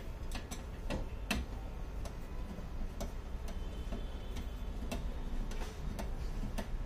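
A hand screwdriver taking the screws out of an LCD TV's backlight inverter board: short sharp clicks at uneven spacing, about one or two a second, as the screws turn loose.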